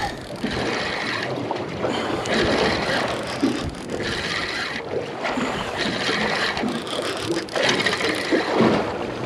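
Wind across the microphone and water against a boat at sea, with a higher hiss that comes and goes every second or two.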